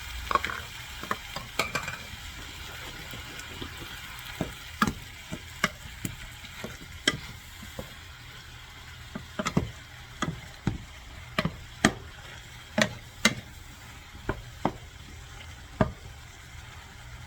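Chicken and vegetable stir fry sizzling in a pan with a little added water, with a steady hiss. A utensil stirs it, knocking and scraping against the pan in a string of sharp clicks.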